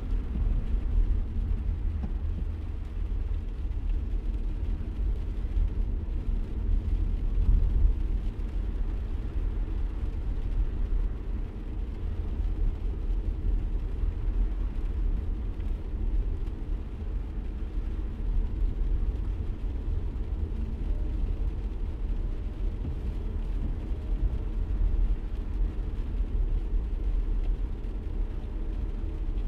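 Car driving, heard from inside the cabin: a steady low road rumble.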